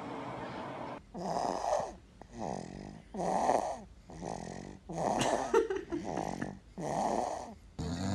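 A man snoring: four loud, rasping snores about two seconds apart, each followed by a quieter breath, after a second of faint steady hiss.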